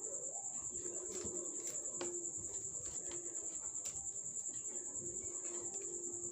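Steady high-pitched insect trill, finely pulsing, with a few light clicks of plastic craft wire strands being handled.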